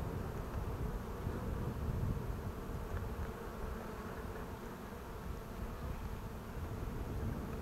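Honey bees buzzing steadily around an opened hive, the colony stirred up as its brood frames are lifted and inspected.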